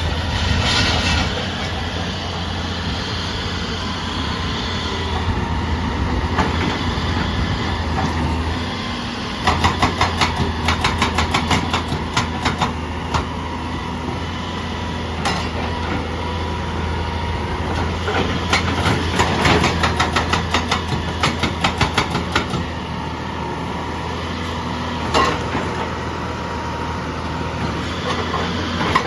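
Diesel excavator engine running steadily while its hydraulic breaker hammers in three bursts of a few seconds each, at about nine blows a second, with a few single knocks between.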